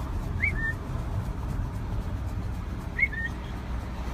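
A bird chirping twice, about half a second in and again about three seconds in. Each chirp is a quick rising-and-falling note followed by a short lower note, over a steady low rumble.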